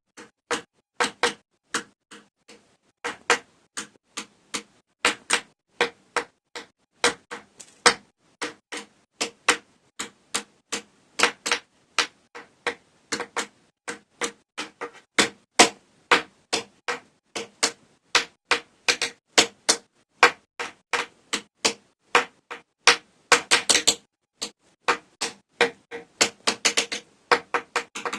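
Pencils tapping out a rhythm on a hard surface: sharp, dry clicks about two or three a second, with quick rolls of taps in the last few seconds.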